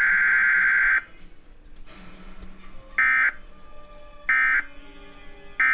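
Emergency Alert System SAME data tones, heard through a TV's speaker during a Required Weekly Test. A long buzzy burst ends about a second in. Then come three short bursts about 1.3 s apart, the end-of-message signal that closes the alert.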